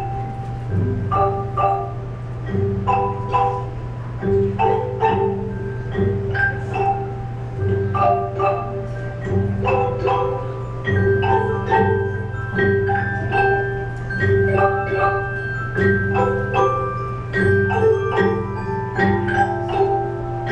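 School instrumental ensemble playing a piece on xylophones and glockenspiels: many struck, ringing notes over a repeating low bass pattern.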